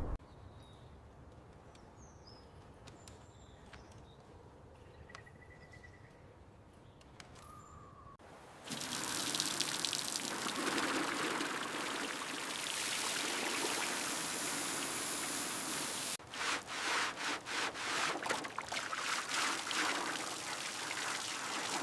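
Quiet outdoor background with a few faint short chirps, then about eight seconds in a steady hiss of water spraying on the car starts abruptly. Near the end it gives way to rhythmic rubbing or scrubbing strokes, several a second.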